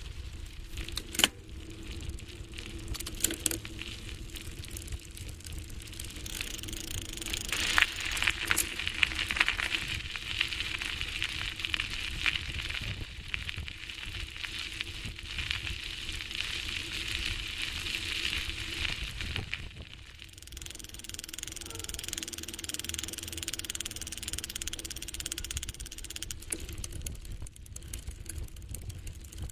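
A bicycle in motion: mechanical running noise of the drivetrain and tyres. There are sharp clicks about one and three seconds in, a steady rushing sound from about seven seconds, and a drop to a quieter hiss at about twenty seconds.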